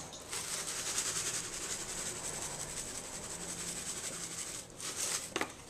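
Steady high hiss of a pan of green beans simmering in their cooking liquid and bacon grease on the stove, dropping away near the end.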